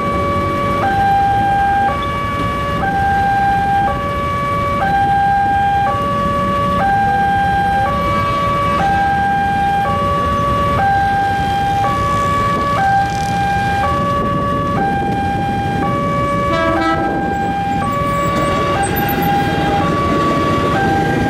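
Railway level-crossing warning alarm: an electronic two-tone signal alternating between two pitches, repeating about every two seconds, over a steady low rumble of idling traffic. In the last seconds a commuter electric train starts rumbling past through the crossing.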